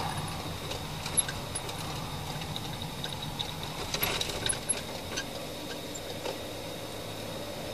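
Patrol car cabin on the move: a steady low engine and road hum, with a few light clicks and rattles about a second in and again around four to five seconds.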